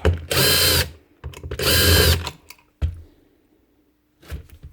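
A handheld electric power tool's motor runs in two short bursts of under a second each, then a single sharp knock and, near the end, a softer thump.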